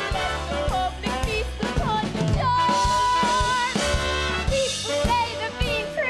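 Swing-style musical-theatre show music with brass and a drum kit keeping a steady beat; a long high note is held in the middle.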